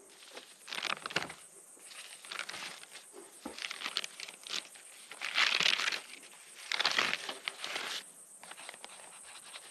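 Footsteps crunching and rustling over dry gravel and brush in irregular bursts, loudest about five and a half and seven seconds in.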